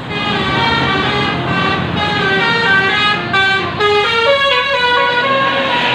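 Bus 'telolet' horn, a set of electric air-horn trumpets playing a quick tune: several tones sound together and step to new pitches several times a second.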